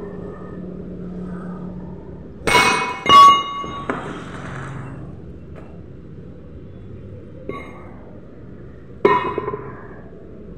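Steel shaft and sleeve clanging against a steel plate and each other, each hit ringing on: two loud clangs a little over two seconds in and a lighter knock just after, then another loud ringing clang about nine seconds in.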